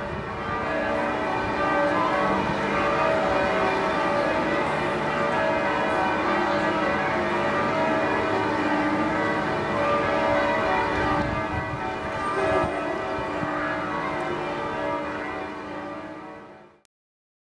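Church bells ringing, many bells sounding together in a steady wash of overlapping tones that fades out near the end.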